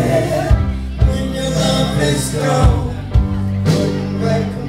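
Live band playing a rock song on drum kit, guitars and keyboard, with regular drum strikes over sustained bass and chord parts, heard through the crowd.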